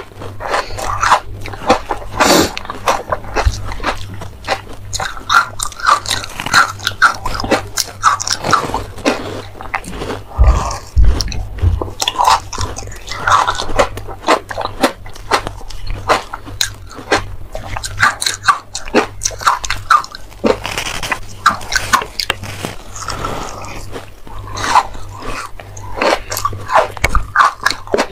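Frozen ice dusted with matcha powder being bitten and chewed: a dense, irregular run of crisp crunches, with two eaters' crunching layered together.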